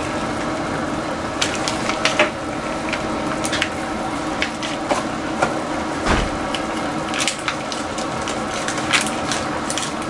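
Crackling and clicking of thin plastic packaging as Japanese cream-stew roux blocks are handled and worked out of their trays, in scattered sharp snaps. A steady hum runs underneath.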